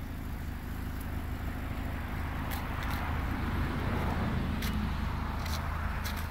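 Acura TSX sedan's engine idling, a steady low hum, with a few light clicks and scuffs.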